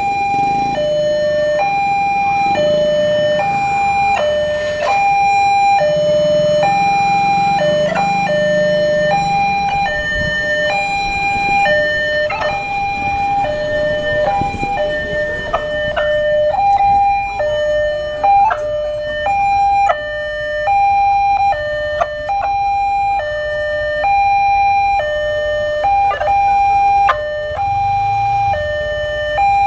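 Railway level-crossing warning alarm sounding a loud electronic two-tone signal, switching back and forth between a higher and a lower tone, each held for under a second. It signals that the barrier is down and a train is approaching.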